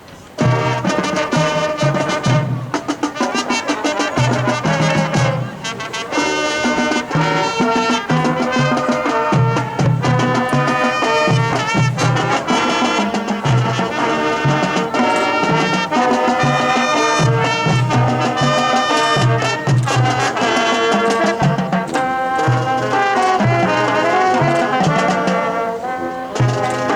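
High school marching band playing, the brass (trumpets and trombones) carrying the music over a recurring low beat. It comes in suddenly about half a second in.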